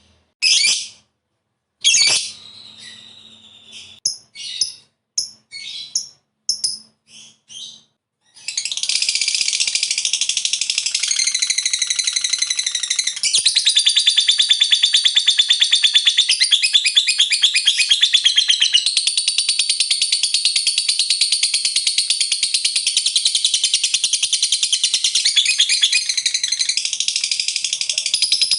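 Lovebird calling: several short, sharp chirps, then from about eight seconds in a long, unbroken, rapid chattering trill, the long 'ngekek' that lovebird keepers prize.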